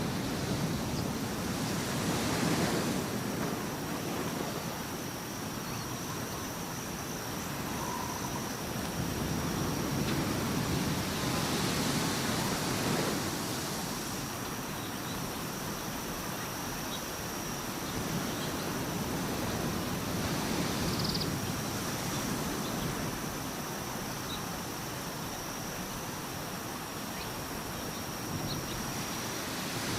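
Outdoor nature ambience: a steady rushing noise that swells and eases every few seconds, with a thin high tone held throughout and a few faint short chirps.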